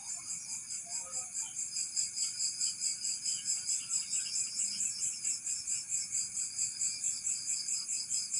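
Insects chirring in a steady, high-pitched chorus that pulses evenly, about three to four times a second.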